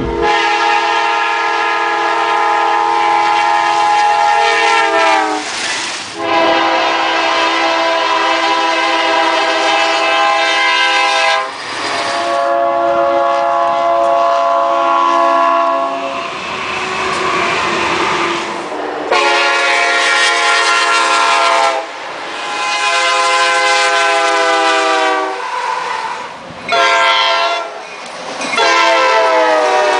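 Multi-chime diesel locomotive air horns sounding a series of long blasts with brief breaks and several shorter blasts near the end, some sliding down in pitch as the train passes. Between the blasts is the noise of the passing train.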